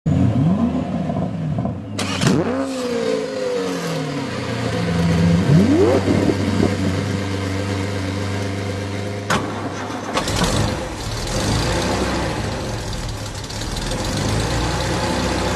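Car engine starting and running, revved up about two seconds in and again around six seconds in, the pitch rising and falling with each rev. A sharp click comes near nine seconds, and from about ten seconds the engine runs with a deeper, rougher note.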